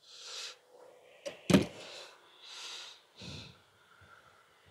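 A few short breaths or sniffs close to the microphone, with one sharp knock about a second and a half in, the loudest sound.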